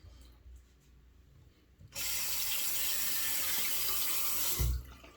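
Bathroom sink tap turned on about two seconds in, running water into the basin in a steady hiss for under three seconds, then shut off with a low thump.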